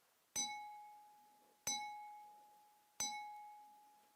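A ringing object struck three times, about 1.3 seconds apart, each strike leaving a clear single-pitched ring that fades quickly, like a bell or chime.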